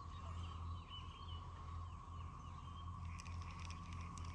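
Steady low electrical hum with a constant higher whine, with a few faint bird chirps in the first half and light clicking starting about three seconds in.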